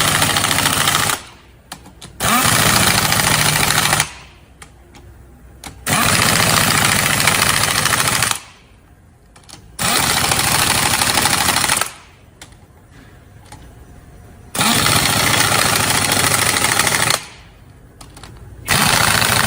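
Power wrench running in repeated spells of about two seconds, six times, with short pauses between, as the caliper's bolts are run down one after another in a cross pattern.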